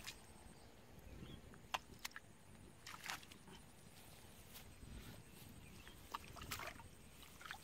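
Faint sloshing and a few short splashes and squelches of muddy water as a child moves through knee-deep mud and water, scattered irregularly over a low outdoor rumble.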